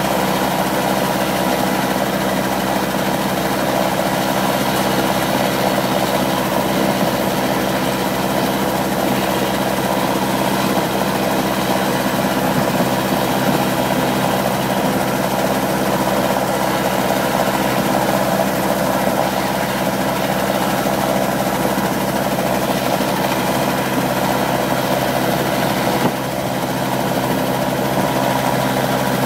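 Robinson R22 helicopter's four-cylinder Lycoming piston engine and rotors running at a steady, even speed while the helicopter sits on the ground before take-off.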